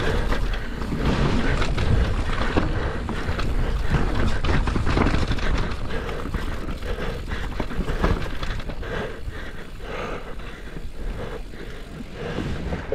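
Mountain bike descending a dirt trail: tyres rolling over rough ground and the bike rattling and knocking over bumps, with wind rumble on the camera's microphone. It eases off somewhat about halfway through.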